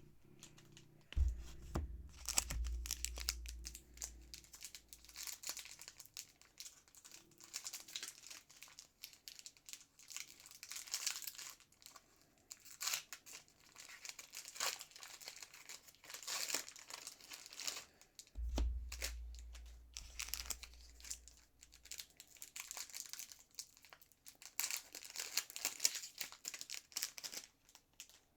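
Foil trading-card booster pack wrapper crinkling and being torn open, with cards rustling and being handled, in irregular crackly spells and a couple of low bumps against the table.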